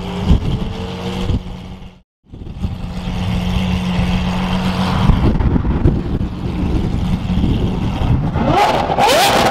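Lamborghini Aventador SVJ's V12 through a straight-piped exhaust, running with a steady low drone that cuts out briefly about two seconds in. Near the end it revs in quick sharp blips with loud crackles.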